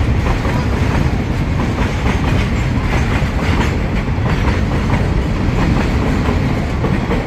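Loaded freight train running through at speed: a steady heavy rumble with the wheels clattering over rail joints.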